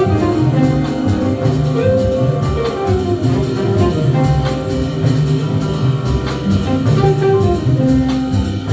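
A jazz band playing live: drum kit and a walking bass line under sustained melody notes.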